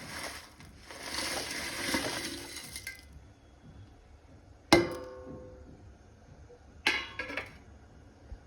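Dry instant noodles being added to a pan with a rustling crackle for about three seconds, then a utensil strikes the pan with a sharp ringing clink about five seconds in and knocks against it again about two seconds later.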